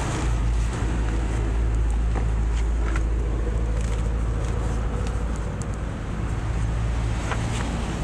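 Steady low outdoor rumble, with a few faint clicks and rustles as a plastic poly bag of soil is handled and peeled open.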